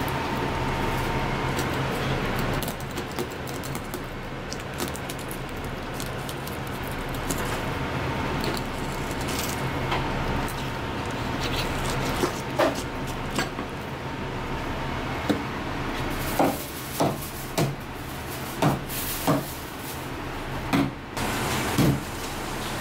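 Kitchen knife working through a flathead fish on a plastic cutting board over a steady background hum. The first half holds quiet slicing along the fillet. From about halfway, a series of sharp knocks comes as the knife chops through the fish's bony frame onto the board, coming quicker in the last several seconds.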